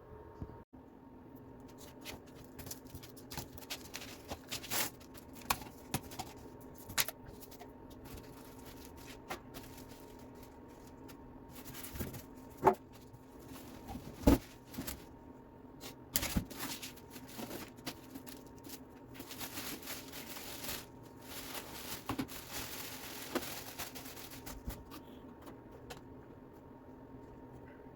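Unpacking a welder from its cardboard box: scattered knocks, scrapes and handling of cardboard and packing, with a few seconds of rustling and tearing of packaging about two-thirds of the way through.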